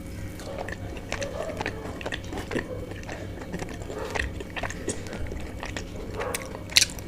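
Close-up chewing of a soft chicken bao bun: irregular wet mouth clicks and smacks, with one sharper, louder click near the end.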